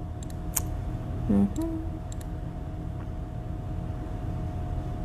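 Room tone with a steady low hum, a few light clicks in the first second, and a short pitched hum of a voice about a second and a half in.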